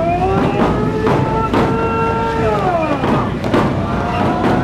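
Neputa festival procession: several voices chant long held calls that fall away at the end, over steady taiko drum beats.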